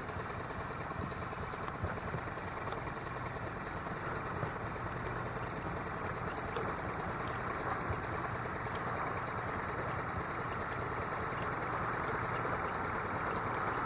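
A boat engine running steadily under way, with a constant rushing noise that grows slightly louder near the end.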